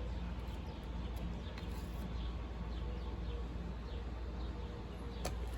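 Faint, repeated bird chirps over a steady low hum, with one sharp click near the end.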